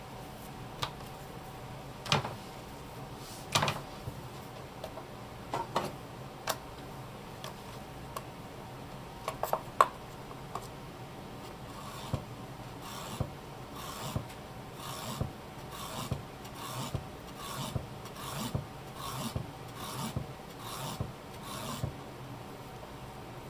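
A long knife slicing skinned bigfin reef squid on a wooden cutting board. A few scattered taps and knocks come first, then a steady run of short cutting strokes, about two a second, in the second half.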